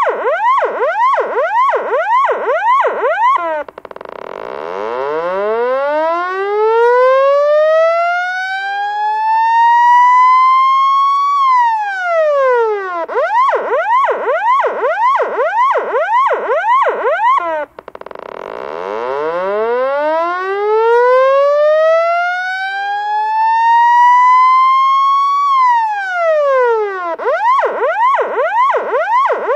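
Loud electronic police siren cycling between a fast yelp of about three sweeps a second and a slow wail that climbs for about seven seconds and then drops quickly. It starts on the yelp, switches to the wail about four seconds in, back to the yelp around thirteen seconds, to the wail again around eighteen seconds, and back to the yelp near the end.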